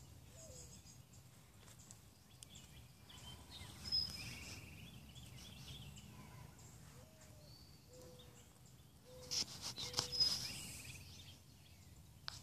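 Quiet outdoor ambience with small birds chirping, short high calls scattered throughout. About nine seconds in there is a burst of rustling and knocks from the phone being handled.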